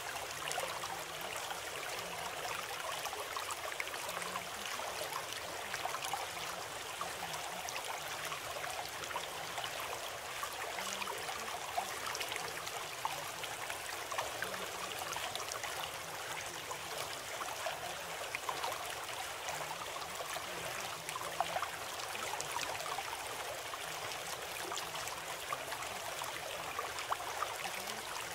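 Steady running water, like a flowing stream, with an even rushing and trickling texture that does not change.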